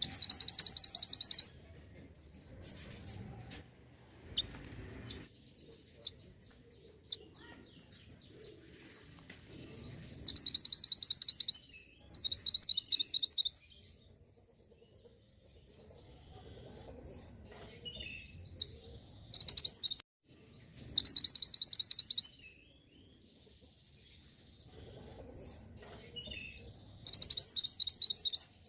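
Songbird chirping in loud bursts of rapid, repeated high notes, each one to two seconds long, about six times, with fainter single chirps between.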